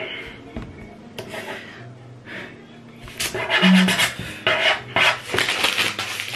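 A sheet of paper being rubbed and crumpled in the hands: a quiet start, then from about three seconds in a dense, rapid run of rustling and crackling.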